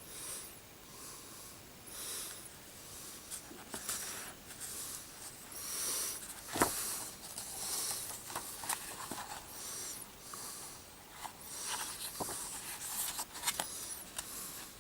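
A person breathing heavily close to the microphone, a series of hissy rushes of breath, over small clicks and rustles from graphic novels being handled. A sharp click about six and a half seconds in is the loudest sound.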